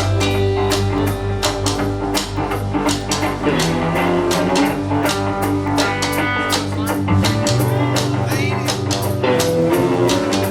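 A live rock band playing an instrumental passage with no vocals: guitars and bass over a steady drum-kit beat.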